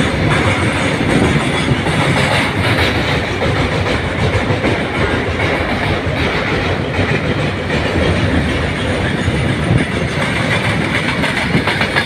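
Loud, steady rumble and clatter of train wheels on rails as a long coal-laden goods train of open wagons passes close alongside on the next track, heard from a moving passenger train.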